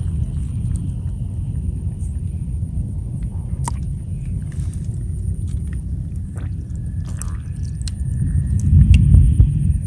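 Wind rumbling on the microphone, swelling near the end, with faint scattered clicks and small water sounds as a hand moves snails about in shallow muddy water.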